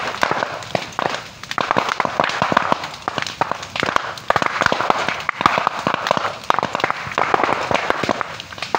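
Large fire burning through bamboo, crackling with dense, rapid sharp pops over a steady rush of flame.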